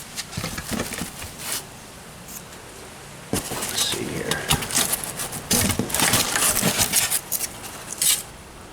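Packing foam being handled and pulled out of a cardboard shipping box: crackling, rustling and scraping, with a few short bursts early on, then a louder, busier stretch about three seconds in that runs until shortly before the end.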